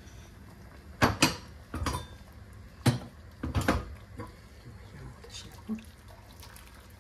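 Metal cookware knocking and clattering on a gas stovetop, several sharp knocks between about one and four seconds in, then water trickling from a steel kettle into a pan.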